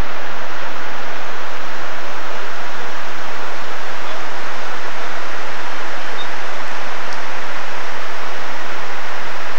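Steady rushing of the 9/11 Memorial reflecting-pool waterfalls, water pouring down the pool walls, recorded on a VHS camcorder.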